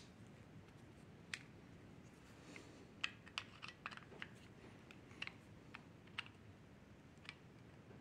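Light, irregular clicks and taps of a screwdriver working the screws of a plastic motorcycle handlebar switch housing, with a quick cluster of clicks in the middle.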